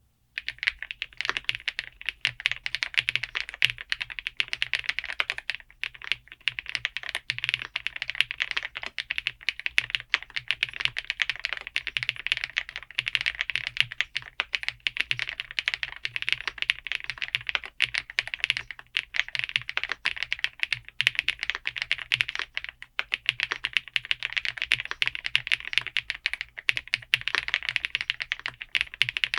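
Fast, continuous typing on the Ajazz AKP846 gasket-mount mechanical keyboard: Huano Matcha Latte linear switches under thick PBT keycaps clacking in quick runs, with a few brief pauses.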